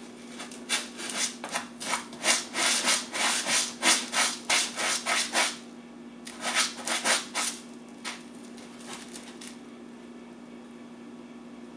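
A cat scratching and pawing granular litter in a plastic litter box: quick scraping strokes in one long bout, then a shorter second bout, then a few single scrapes before it stops, leaving a faint steady hum.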